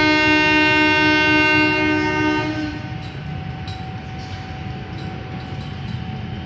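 Train horn sounding one long chord blast that cuts off about two and a half seconds in, over a steady low rumble.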